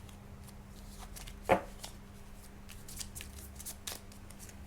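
Tarot cards being handled and laid out: light scattered clicks and rustles of card stock, with one louder sharp card snap about a second and a half in.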